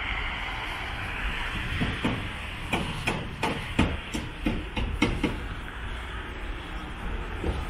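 Hard-soled footsteps clicking on stone paving, quick and sharp, from about two seconds in until a little past five seconds, over a steady hiss of distant city traffic.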